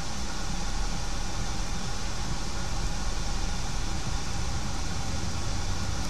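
Steady road noise inside a vehicle on a rain-soaked highway: a low engine and road rumble under an even hiss of tyres on the wet surface.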